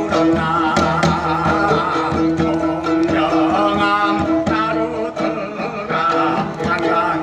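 Live Korean folk music: a man sings a wavering melody over a steady drone, a plucked lute and regular strokes on a Korean barrel drum (buk).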